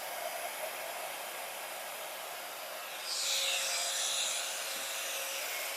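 Hand-held hair dryer blowing steadily, switched on just before, used to push wet acrylic paint across a canvas. About three seconds in it gets louder and hissier.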